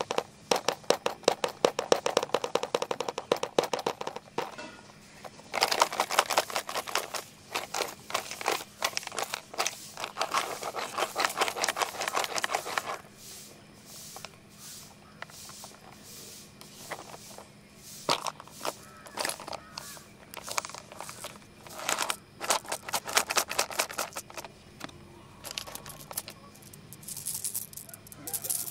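Fingernails rapidly tapping and scratching on the lid of a hard plastic pencil box, in quick runs of clicks broken by short pauses.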